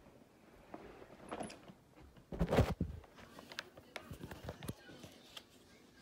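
Clicks, knocks and rattles of a vacuum cleaner's plastic parts being handled while it is switched off, with one louder clatter about two and a half seconds in.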